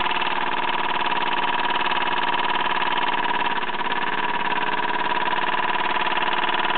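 Mamod ME3 toy marine steam engine running fast and steady under steam, turning its propeller shaft through a universal joint. It makes a rapid, even beat with a steady high tone over it, and the drive is turning freely and working smoothly.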